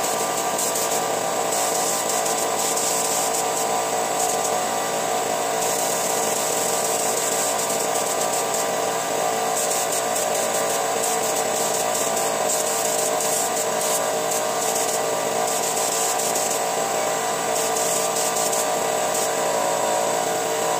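Gravity-feed air spray gun hissing in stretches as its trigger is pulled, spraying finish, over the steady drone of the air compressor that feeds it.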